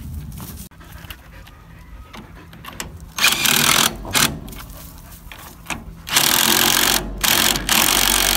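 Cordless impact driver hammering in four bursts, the first about three seconds in, the last two long ones near the end, as it runs the lug nuts onto a boat trailer's wheel while a new tire is fitted.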